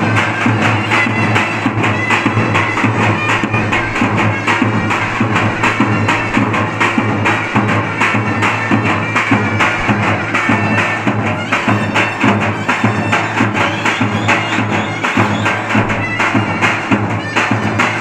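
Turkish davul drum beaten with a stick, played with a shrill reed pipe (a zurna) in loud, steady folk dance music.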